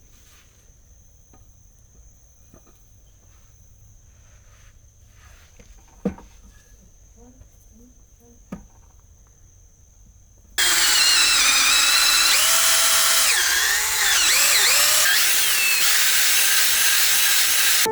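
Faint steady high tone with two sharp knocks, then about ten seconds in a power tool starts up loud and keeps running, its pitch wavering.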